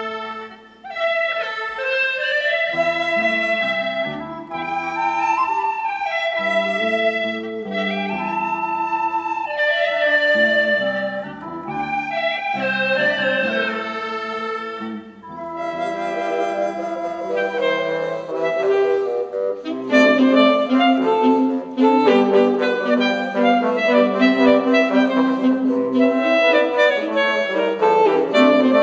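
A hulusi (gourd flute) ensemble plays a slow melody in phrases with brief breaks between them. About two-thirds of the way through it gives way to a louder, fuller student wind ensemble of saxophones, clarinet, flute and trombone.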